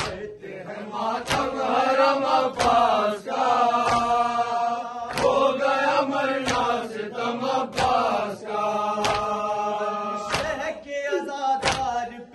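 Voices chanting a noha, an Urdu mourning lament, in long held lines. Under the chant, matam (hands striking chests) lands as an even, sharp slap about three times every four seconds.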